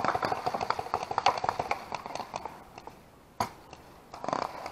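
Paintball markers firing: a quick run of sharp pops, thinning out after about two seconds, with one louder pop a little later and a few more near the end.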